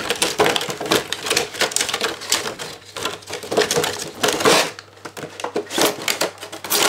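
Stiff clear plastic packaging crackling and crinkling as hands pull it apart and off a headphone box, in quick irregular crackles. It eases off about five seconds in, then picks up again near the end.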